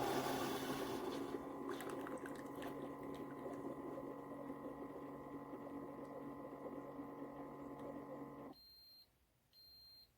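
Ninja Pod & Grounds coffee maker running with a steady motor hum, which stops about eight and a half seconds in. Two short high beeps from the machine follow.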